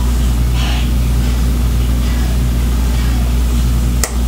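A loud, steady low hum, with a faint brief hiss about half a second in.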